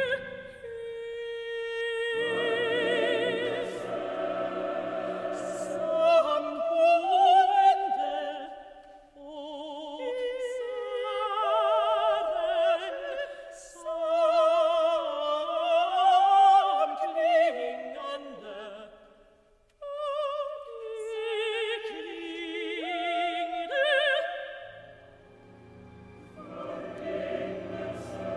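High operatic voices singing slow, overlapping lines with wide vibrato, in a contemporary classical work for soloists, choir and orchestra. Low sustained orchestral sound lies under the voices at the start and returns near the end, and drops out for most of the middle.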